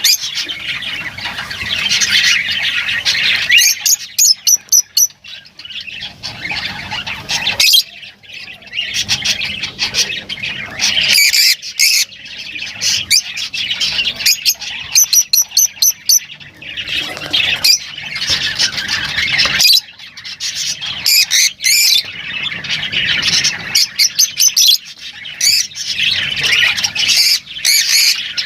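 Lovebirds chattering and squawking in a dense run of shrill calls, broken every several seconds by short, fast trills of sharp clicking notes.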